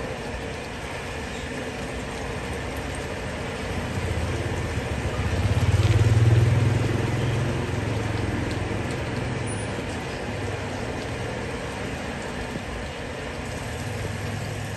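Dirty water gushing from an unblocked drain pipe and splashing into the pit below, with the steady hum of a motor or engine that swells about five seconds in and then eases.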